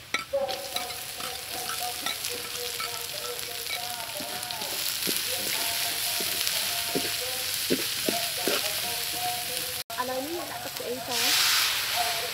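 Minced garlic and chopped greens sizzling in hot oil in a wok, stirred with a metal ladle that scrapes and clicks against the pan. About a second before the end the sizzle surges louder as a dark sauce hits the hot wok.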